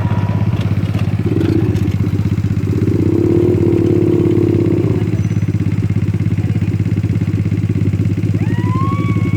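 ATV engine running steadily with a fast throbbing beat, swelling briefly in the first half.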